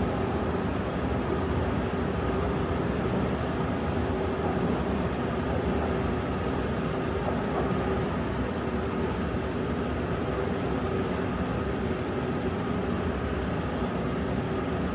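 London Underground train giving a steady hum and rumble, with a few steady tones held over it.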